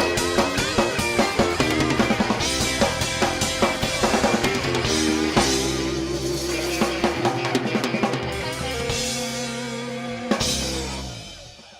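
Rock band playing the end of a song live: the drum kit hammers out fills over guitar and bass, then the band holds a final chord with a last hit about ten seconds in, and the sound dies away.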